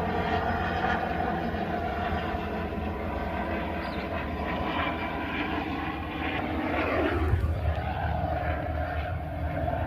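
Steady engine drone with a low, even hum that swells briefly about seven seconds in.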